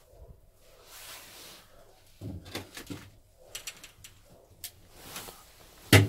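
Footsteps on rusty metal and debris: scattered scrapes, creaks and clicks, with one sharp knock near the end.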